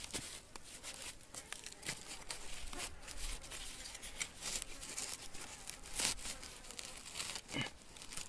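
Dry, weathered wood and twigs crackling, scraping and tearing as hands pull and break at them on gravelly ground: a run of irregular short snaps and rasps, the sharpest about six seconds in, with a brief falling squeak near the end.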